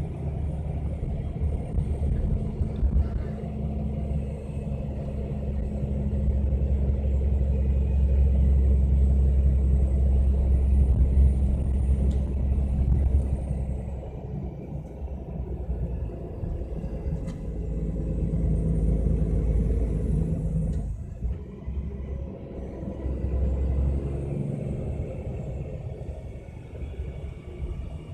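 MAN Lion's Coach running with a steady low rumble that swells and eases, briefly dropping away a little after the two-thirds mark. Faint high whines rise and fall above the rumble.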